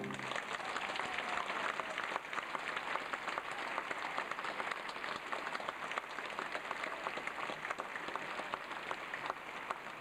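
Theatre audience applauding, a dense, steady patter of many hands clapping.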